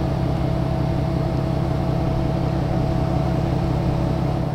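A vehicle engine idling steadily, a low even hum that stops abruptly at the end.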